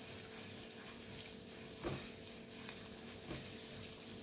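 Chopped garlic sizzling gently in a little hot oil in a nonstick wok, being fried until fragrant, stirred with a silicone spatula. It gives a couple of soft knocks on the pan, about two seconds in and again a little past three seconds.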